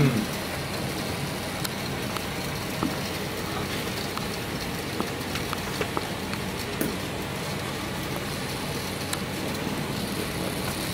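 Steady background rushing noise in a room, with a few faint, scattered clicks and taps.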